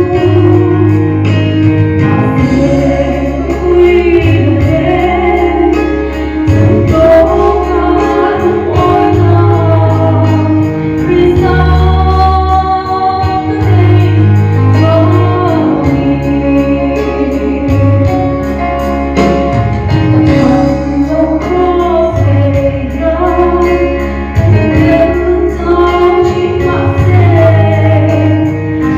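Mizo-language gospel song: a woman singing a melody with backing voices over a band with a strong, pulsing bass line.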